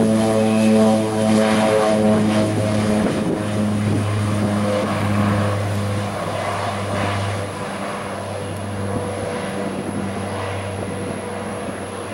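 Beechcraft C99 twin-turboprop at takeoff power on its takeoff roll and lift-off: a steady propeller drone with a slow pulsing beat, fading gradually over the second half as the aircraft climbs away.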